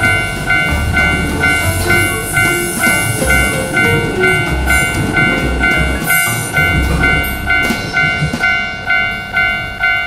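Japanese level-crossing warning bell ringing its repeated "kan-kan" tone in a quick, even rhythm, over the rumble and rolling noise of a commuter train passing over the crossing.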